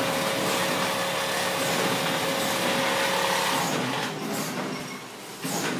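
Powder packing machine and its powder feed running: a steady mechanical noise with a steady hum that cuts out a little over three seconds in. The noise then drops for about a second and a half and comes back up near the end.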